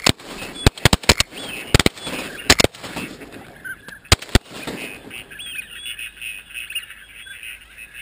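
A rapid volley of shotgun shots from several guns, about a dozen in the first four and a half seconds, as a flock of ducks is fired on. After that the ducks keep calling, short repeated calls, for the rest of the time.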